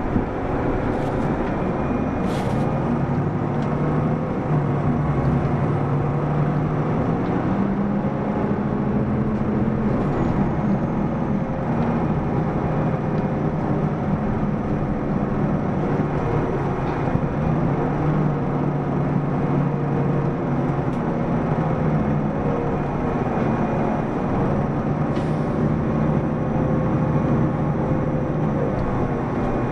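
Running noise of a Mitsubishi Fuso PDG-AA273KAN diesel city bus under way, heard from inside. The engine note steps up and down several times as the bus pulls and eases off, over steady road and drivetrain noise.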